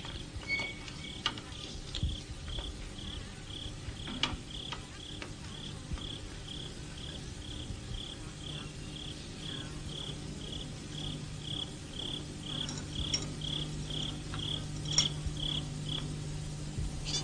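A cricket chirping steadily, about two short high chirps a second, stopping shortly before the end, with a few faint clicks.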